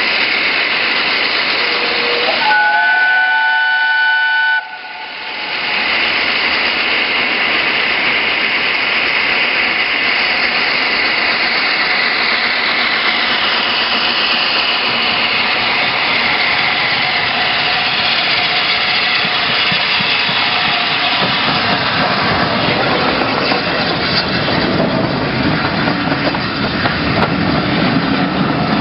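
Steam whistle of the LNER Peppercorn A1 Pacific Tornado sounding for about three seconds near the start. After it comes the steady hiss and exhaust of the locomotive working its train, with a deeper rumble of passing coaches near the end.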